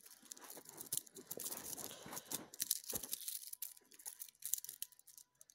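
Rapid, irregular ratcheting clicks of a cheap Sinobi Submariner-homage watch's unidirectional bezel being turned by hand, mixed with scratchy handling noise close to the microphone and a single knock about three seconds in. The owner calls the build shoddy and expects the bezel to come off.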